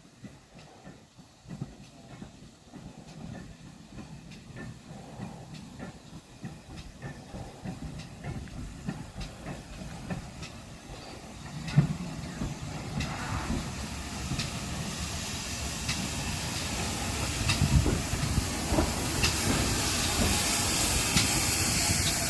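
GWR 4555, a 4500-class 2-6-2 small prairie tank engine, drawing closer with its steam hiss growing steadily louder. Scattered metallic clicks and a sharp knock about twelve seconds in.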